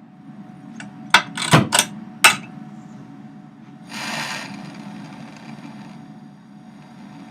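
Small handheld soldering torch being lit: four sharp igniter clicks, then a short hiss of gas as it catches.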